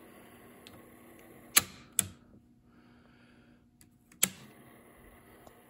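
Transport keys of a Rheem Califone AV80 cassette recorder being pressed: three sharp mechanical clicks, two close together about a second and a half in and a third about four seconds in.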